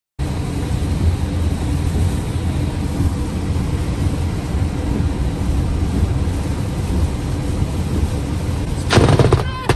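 A steady low rumble, then near the end a sudden, very loud crack of a close lightning strike that crackles for about half a second, with a second sharp crack just after.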